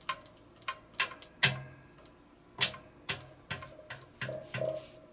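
Irregular sharp clicks and knocks, about a dozen over five seconds, several with a brief low hum under them, at a horizontal metal-cutting bandsaw whose on-off switch wiring has melted and arced.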